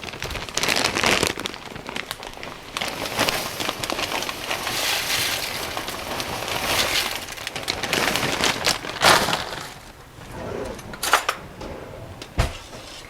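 Plastic bag of dry egg noodles crinkling as the noodles are poured into a pot, the hard noodles crackling and rattling, with a few sharp knocks near the end.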